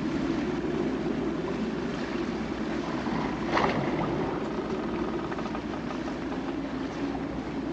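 Boat engine running steadily at low revs, with a brief sharp sound about three and a half seconds in.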